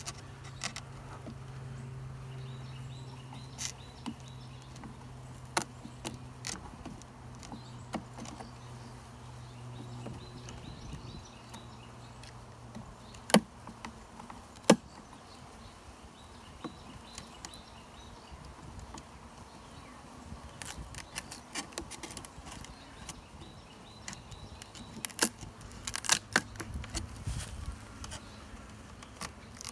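Honey bees in a screened package giving a low, steady hum that is strongest in the first half. Over it come scattered sharp clicks and knocks of a metal hive tool prying at the package's wooden top: two loud knocks about halfway through and a quick run of clicks near the end.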